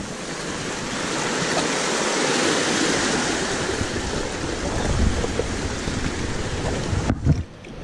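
Sea waves surging and breaking on the shore, swelling about two to three seconds in, with wind rumbling on the microphone; the sound drops away abruptly just before the end.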